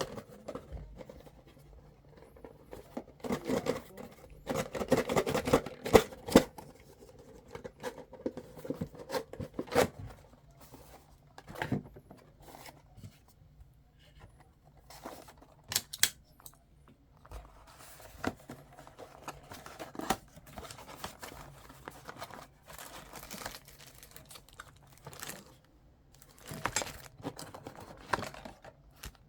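Plastic wrapping and packaging being handled and torn in irregular bursts, with scattered sharp clicks and knocks. The loudest stretch comes a few seconds in.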